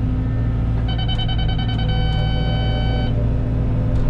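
Cat 313 excavator's diesel engine running steadily in the cab. About a second in, the in-cab grade-guidance alert sounds: a rapid electronic beeping that turns into a steady tone for about a second, then stops.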